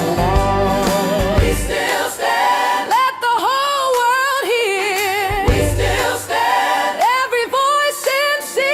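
Blues song: a female lead voice sings long, held notes with wide vibrato over backing voices and band. The bass drops out for a few seconds in the middle, then returns.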